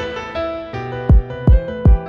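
Trap beat playing from Maschine MK2: a sampled melodic loop of held notes, with three falling-pitch 808 kick hits about a third of a second apart in the second half.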